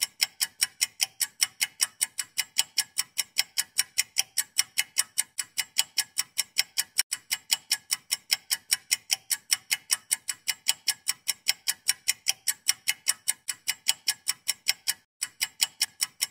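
Clock ticking sound effect: quick, even ticks at about four a second, stopping about a second before the end.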